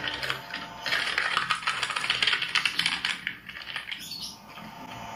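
Twin-shaft industrial shredder tearing apart a metal Gold Play Button plaque: a dense crackling, crunching clatter of metal being ripped and chewed. It is loudest from about a second in to about three seconds, then fades.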